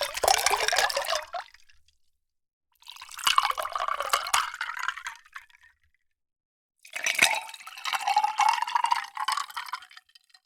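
Water being poured into a container in three separate pours, each a couple of seconds long, with short silences between. In the last pour the pitch of the filling vessel rises slightly as it fills.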